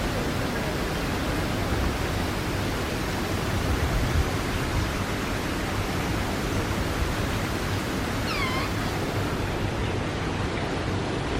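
A steady rushing noise, with a single short bird call about eight seconds in.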